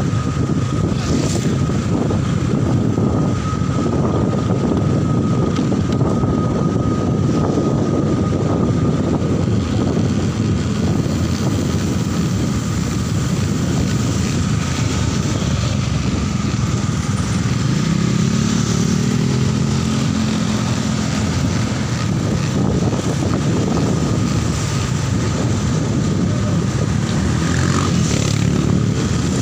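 Engine and wind noise from a vehicle driving along a street, a steady rumble with a thin whine running through it. An engine note swells and bends briefly a little past the middle.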